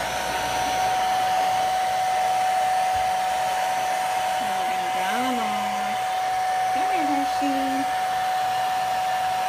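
Handheld hair dryer running steadily, a constant whine over a rush of blowing air.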